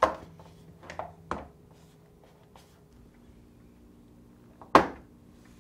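Plastic front grille (kickplate) of a Whirlpool French door refrigerator being pressed into place: a couple of light clicks about a second in, then one sharp snap near the end as a locking tab catches on the cabinet.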